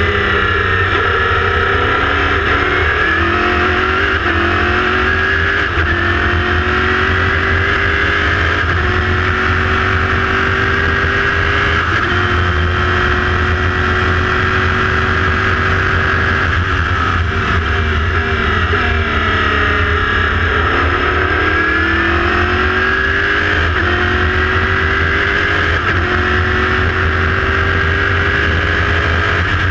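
Chevrolet V8 of an LMPC prototype race car heard from the cockpit, pulling up through the gears over the first several seconds and holding high revs along a straight. About two-thirds in it drops in pitch as it downshifts for a corner, then accelerates through the gears again. A heavy low rumble of wind buffeting on the microphone runs underneath.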